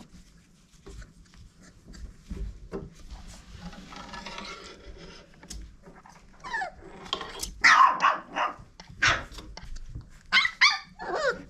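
Five-week-old red nose pit bull puppies at play: soft scuffling, then a run of high little barks and yips from about six and a half seconds in, loudest around eight seconds, with another cluster near the end.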